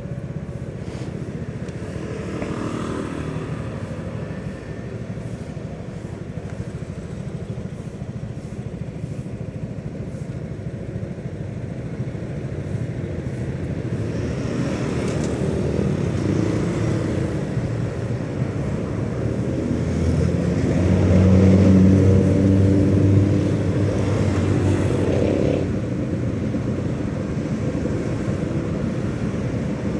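Engines of vehicles idling in traffic stopped at a red light, a steady low running rumble. About twenty seconds in, a nearby engine grows louder with a low steady hum for a few seconds, then eases off.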